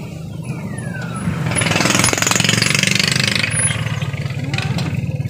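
A motor vehicle passes on a wet road: a rushing noise swells to a peak about two to three seconds in and fades, over a steady low, throbbing engine rumble.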